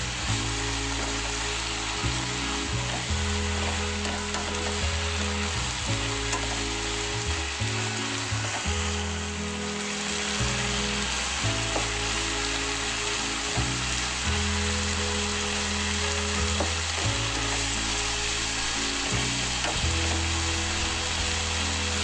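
Chicken liver and gizzard stir-fry with tomatoes sizzling steadily in a wok, stirred with a spatula that knocks the pan now and then, over background music whose low notes change every second or two.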